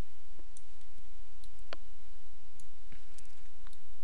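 Scattered computer mouse clicks, about ten sharp single clicks at uneven intervals, over a steady background hum.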